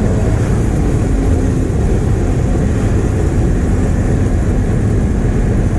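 Porsche Cayman GT4's 3.8-litre flat-six and road noise heard from inside the cabin while cruising at steady speed: a dense low rumble with a faint steady engine note.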